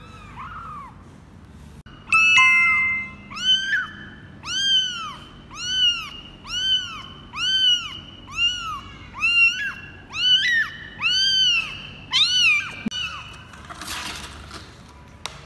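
A 24-day-old kitten meowing over and over, about a dozen high calls in a steady series, each rising and falling in pitch. Near the end comes a brief rustle of cardboard as the kitten is set into the box.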